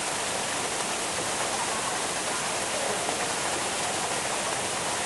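Steady, even hiss of running or falling water.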